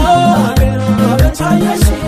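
Background music with a steady kick-drum beat under a melody.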